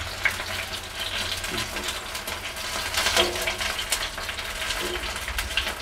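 Lote fish (Bombay duck) chops frying in shallow oil in a pan, the oil sizzling steadily with frequent small crackles.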